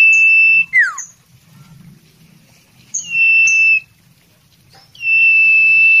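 Common iora (sirtu) singing in long, steady, high whistles: three in all, the first ending in a quick downward note about a second in, a shorter one about three seconds in, and a long one starting about five seconds in.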